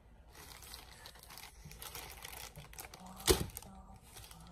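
Paper takeout bag crinkling and rustling as it is handled and opened, with one sharp, loud crackle a little past three seconds in.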